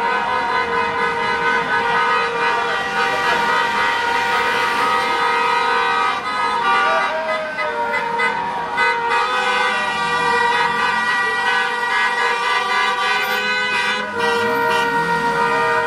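Several car horns held down together in long, overlapping blasts, the chord shifting as horns drop out and come back in: celebration honking.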